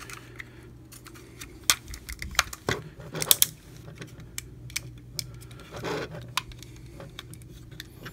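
Plastic parts of a Transformers Megatron action figure clicking and snapping as they are moved and rotated by hand. The scattered clicks are loudest in a quick cluster a little past three seconds in.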